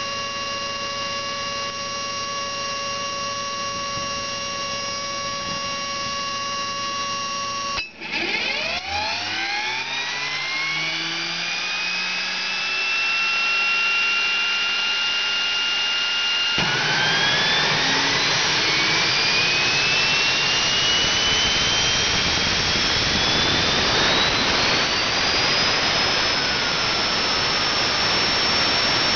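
Homemade jet engine: first a steady turbine whine at constant speed, then, after a brief break about eight seconds in, the whine starts low and rises in pitch as the turbine spools up. About halfway a much louder rushing roar cuts in suddenly, and the whine keeps climbing until it levels off high near the end.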